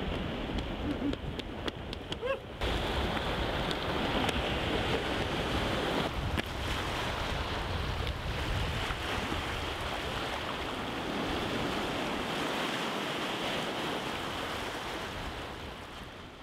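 Sea surf washing against a rocky shore, a steady rush with some wind on the microphone. It grows louder about two and a half seconds in and fades out near the end.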